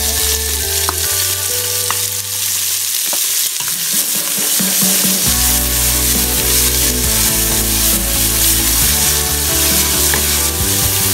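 Chopped onion dropped into hot oil in a metal pot, sizzling loudly as it fries with garlic and whole spices. A spatula stirs it, with a few clicks against the pot.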